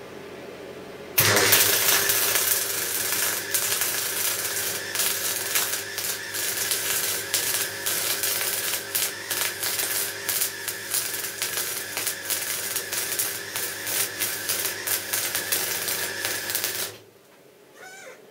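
MIG welding arc on aluminium: the arc strikes about a second in and runs as a dense, steady crackling hiss, then stops suddenly near the end.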